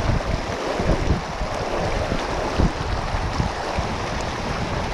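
Shallow mountain stream rushing over rocks close by, a steady rush of water, with a few short low thumps, the strongest about two and a half seconds in.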